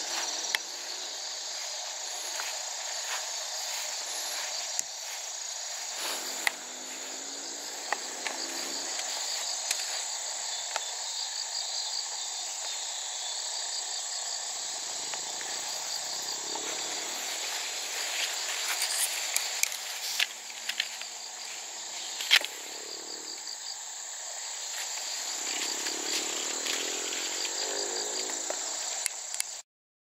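Steady daytime chorus of insects such as crickets, a high-pitched shrill trilling with a pulsing pattern, broken by a few sharp clicks. The sound cuts out briefly near the end.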